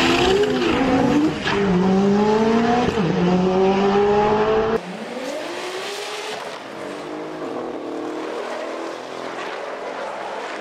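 Mk4 Toyota Supra engine revving hard as the car accelerates off a drag-strip line, its pitch climbing with a couple of drops at gear changes. After a cut about five seconds in, a quieter, more distant drag race follows, engines rising in pitch, with some tyre squeal as the Supra loses control and goes sideways.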